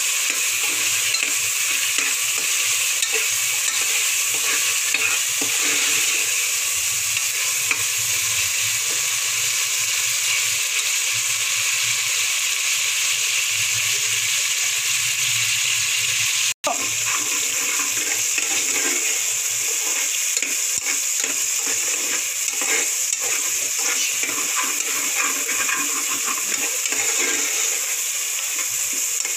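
Chopped tomatoes sizzling in hot oil in an aluminium pressure cooker, a steady frying hiss, with a steel spoon stirring and scraping the pan bottom now and then. The sound drops out for an instant about halfway through.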